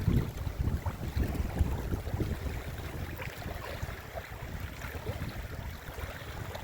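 Wind buffeting the microphone in uneven gusts, with water lapping faintly around a kayak.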